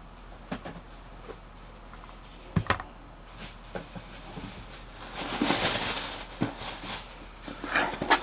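Small items being handled on a tabletop: scattered light clicks and knocks, with a longer rustle about five seconds in.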